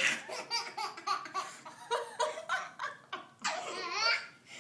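Baby belly-laughing in quick repeated bursts, a few a second, breaking into a longer outburst near the end.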